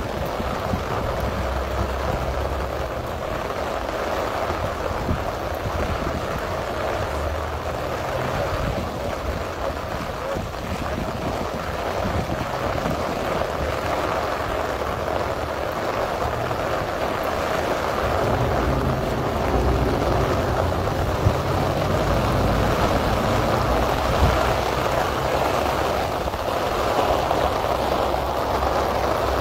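Steady heavy rain, with gusts of wind rumbling on the microphone now and then.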